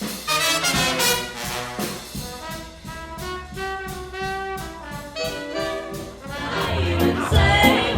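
Swing band playing, its brass section of trumpets, trombones and saxophones holding chords over a steady beat; the full band comes in louder with a pulsing bass near the end.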